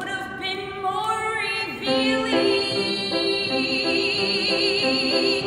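A woman singing a show tune to piano accompaniment. Her line climbs over the first two seconds, then settles into a long held high note with wide vibrato near the end.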